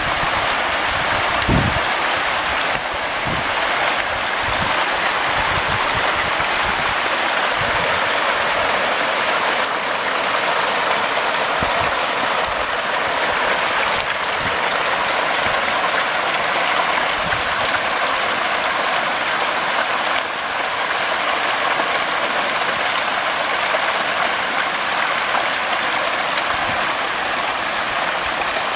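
A dense shoal of catfish thrashing and splashing at the surface in a feeding frenzy, a steady rushing patter like heavy rain on water.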